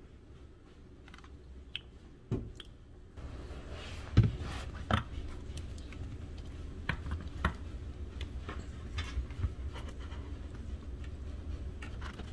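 Handling noises from a plastic gear-oil bottle squeezed into a transaxle fill hole: scattered clicks, knocks and scrapes, the loudest about four seconds in. A low steady hum comes in about three seconds in.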